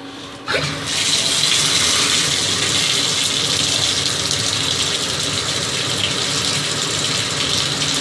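Bathtub faucet turned on about half a second in, then water gushing steadily from the tub spout and splashing over a hand held under the stream.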